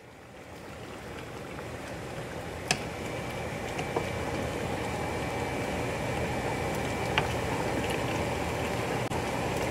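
Chicken stock with tomato paste and chickpeas bubbling at a simmer in a large pot, getting gradually louder. A serving utensil knocks lightly against the pot twice.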